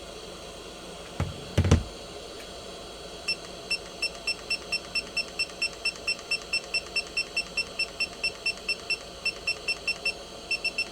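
Hot air rework station's blower hissing steadily, with two knocks about a second and a half in, then a long run of short, high beeps, about four a second, as the temperature setting is stepped up with repeated button presses.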